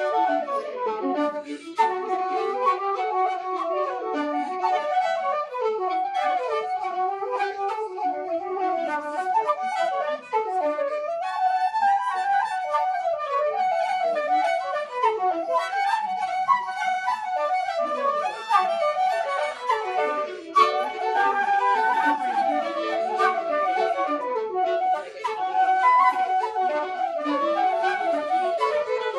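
Two Carbony carbon-fibre Irish flutes in D and a fiddle playing an Irish traditional tune together, a steady stream of quick melody notes.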